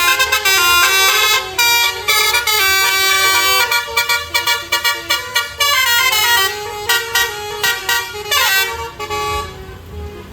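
A basuri multi-trumpet musical horn on a passing vehicle plays a tune in stepped notes, with a quick falling glide about eight seconds in. The horn dies away about nine and a half seconds in.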